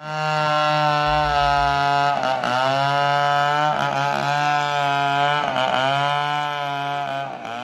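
Chainsaw running at high speed while cutting, its pitch dipping briefly every second or two as the chain bites into the wood.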